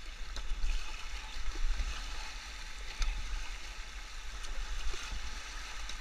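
Rushing whitewater of the Bhote Koshi river churning around a raft: a steady rapids hiss with a low rumble underneath, and a sharp knock about three seconds in.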